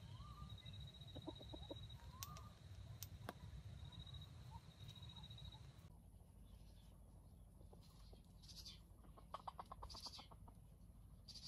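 Red junglefowl clucking faintly: two short runs of quick clucks, one early and one near the end, with a few soft rising notes between.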